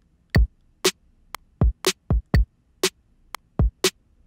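Kick and snare drum one-shot samples in Native Instruments Maschine playing back a just-recorded MIDI beat: short, separate drum hits, two to three a second.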